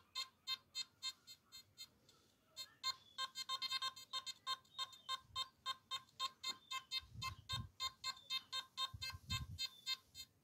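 Nokta Makro Simplex metal detector sounding a rapid train of short, even beeps, about six or seven a second, as it responds to a large hammered silver coin near its search coil. The beeps briefly fade out about two seconds in, then resume. A few low rumbles come in the second half.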